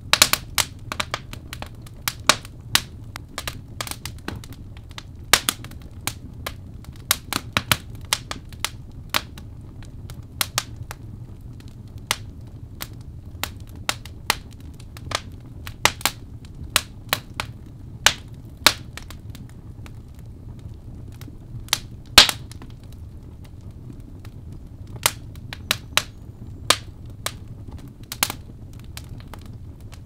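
Wood fire burning in a fireplace: irregular sharp crackles and pops from the burning logs over a low steady rumble of the flames, with one loudest pop about two-thirds of the way through.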